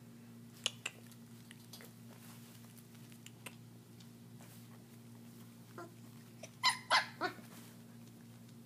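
German shepherd puppies in a pen: a few faint clicks about a second in, then three short yelps in quick succession about seven seconds in. A steady low hum runs underneath.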